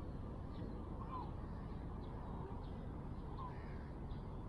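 Outdoor ambience by open water: a few faint, short bird calls, crow-like, over a steady low rumble.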